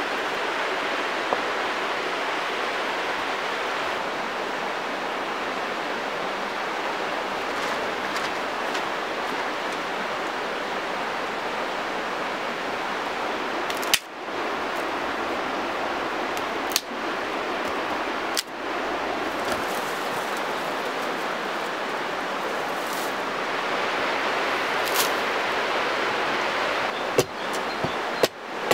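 A steady rushing noise throughout, broken by a few single sharp knocks, then a quick run of hatchet blows on a wooden chopping block near the end.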